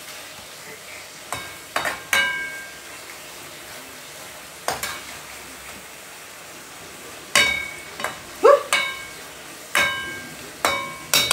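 A metal utensil clinks against a cooking pot about ten times at irregular intervals, each strike ringing briefly, over a steady frying sizzle.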